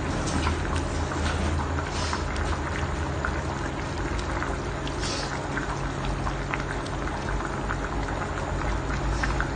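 Fish curry boiling hard in a steel pot: a steady bubbling with many small irregular pops, over a low steady hum.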